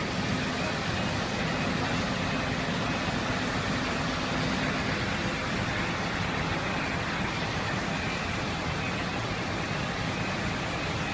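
Steady engine and street noise from fire trucks running at the scene, mixed with road traffic, with a low engine hum through the first half.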